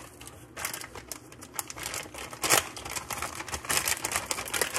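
Clear plastic bag of sliced cheese crinkling and crackling as it is handled and opened by hand, starting about half a second in, with a louder crackle about two and a half seconds in.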